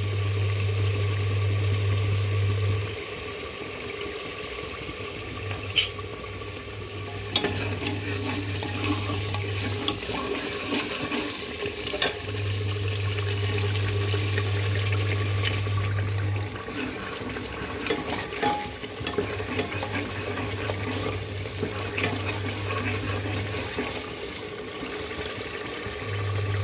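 Onion-garlic and spice masala sizzling in mustard oil in an aluminium pressure cooker while a steel ladle stirs it, with occasional sharp clicks of the ladle against the pot. A low hum comes and goes in stretches of a few seconds.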